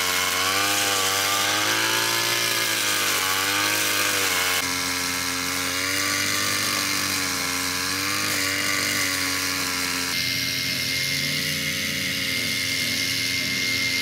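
Petrol brush cutter engine running at speed, its pitch wavering up and down as the blade cuts through rice stubble and the load changes. The sound changes abruptly twice, about a third of the way in and again past the middle.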